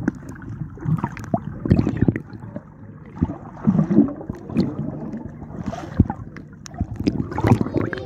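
Muffled sloshing and churning of water heard from underwater, with scattered sharp clicks and knocks.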